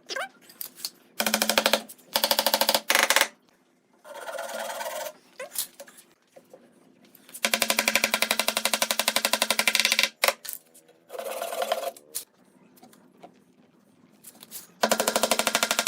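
Handheld power tool working wood, run in several short bursts of a second or two, with the longest burst of about two and a half seconds near the middle; each burst is a rapid, even buzz of pulses.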